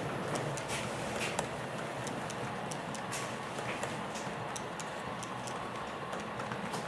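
Model train wagons loaded with logs rolling past on the track, with a steady rolling rumble and irregular clicks of the wheels over rail joints.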